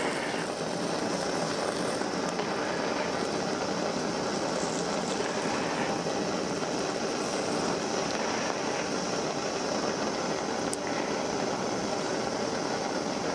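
Gas blowtorch flame burning with a steady, even hiss while heating a steel bolt hot enough to melt beeswax onto it.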